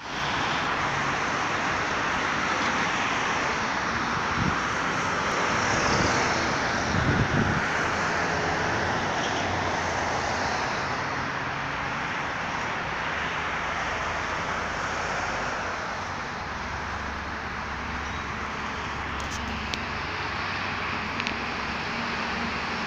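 Steady city road traffic noise: cars driving along a multi-lane road, with a couple of brief low rumbles about four and seven seconds in.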